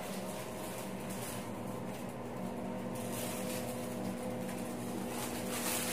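Steady hum of a ventilation fan in a small tiled bathroom, with a brief rustle near the end.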